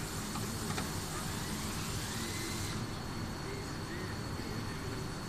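Steady rumbling background noise of a vehicle workshop with a faint high whistle, and a high hiss that cuts off suddenly about two and a half seconds in; a single click about a second in.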